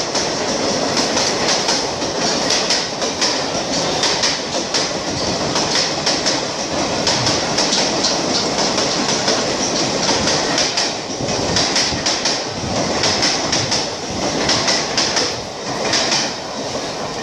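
Passenger express train running through a station: a loud, continuous rattle of coaches and wheels, with repeated clacks as the wheels cross rail joints.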